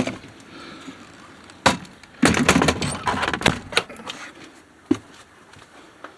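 RV entry door being pushed and pulled shut: a sharp knock, then a run of clattering knocks and rattles as it is worked against its frame and latch, and a last single knock.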